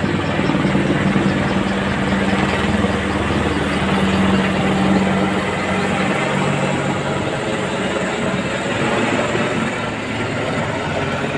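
AH-64 Apache attack helicopter flying low overhead: a steady, loud rotor and turbine drone with a low hum underneath, easing a little near the end as it moves away.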